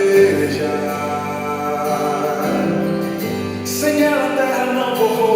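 Gospel song: sustained held chords with a male vocal line and a cymbal splash near the middle.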